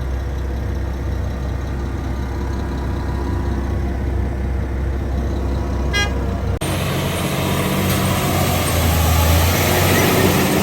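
Heavy truck engines running steadily with a low drone, a short beep about six seconds in, then louder and noisier engine running after an abrupt change.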